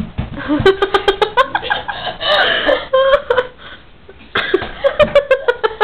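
A person laughing hard in quick, pulsing bursts: one long stretch of laughter, a short pause, then a second burst starting about four and a half seconds in.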